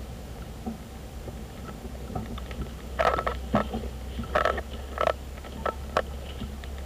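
Car driving, heard from inside the cabin: a steady low road and engine rumble, with a run of sharp irregular knocks and rattles about halfway through that last around three seconds.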